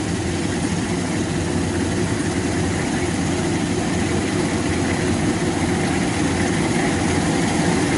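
Kubota DC-93 combine harvester's diesel engine and threshing works running steadily as it cuts rice in a waterlogged paddy, an even low drone.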